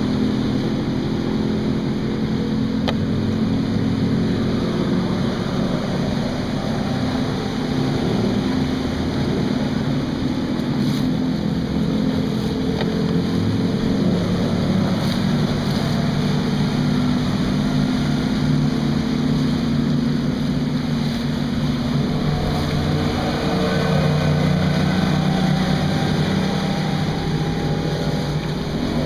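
Outboard motors of fishing boats running at high speed as boats go by one after another, the engine note shifting as each passes and rising near the end.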